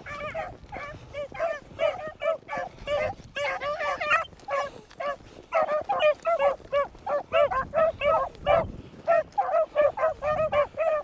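A pack of beagles baying as they run a rabbit's track: quick, overlapping yelping cries, several a second, with short lulls about five and eight seconds in.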